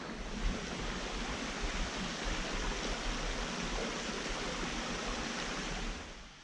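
Mountain brook rushing over rocks: a steady, even rush of water that drops away sharply near the end.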